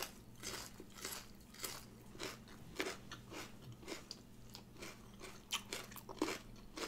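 A person chewing a crunchy raw radish, with crisp crunches about twice a second.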